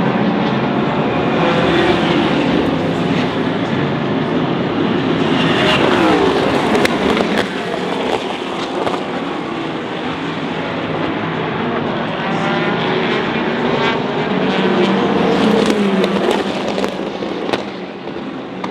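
Endurance race cars running at speed past the track edge: a continuous din of racing engines, with cars sweeping by twice and their engine pitch dropping as they pass.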